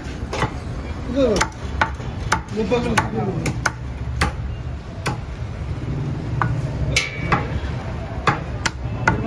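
Heavy cleaver chopping country chicken pieces on a round wooden chopping block: a dozen or so sharp strikes at an uneven pace, roughly one or two a second.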